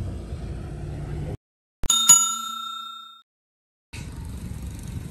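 Low outdoor background rumble cuts out, then a bell ding, struck twice in quick succession, rings out for about a second in otherwise dead silence: an edited-in transition sound effect. The outdoor rumble comes back near the end.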